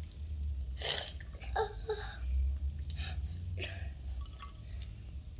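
A young child with a cold lets out a sudden explosive burst of breath about a second in, followed by short little vocal sounds, then a second, softer breathy burst a few seconds later.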